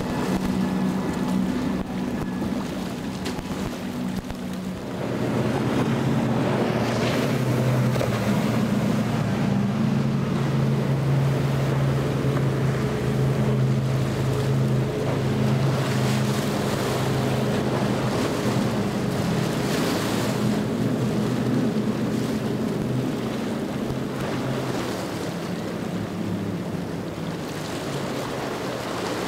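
Triple Mercury outboard engines on center-console boats running at speed, a steady engine drone over the splash of the hull through waves and wind on the microphone. About five seconds in, the engine note drops lower and gets louder.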